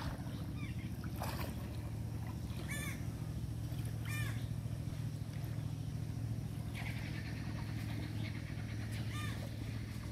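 Short arched animal calls, rising and falling in pitch, three times over a steady low hum.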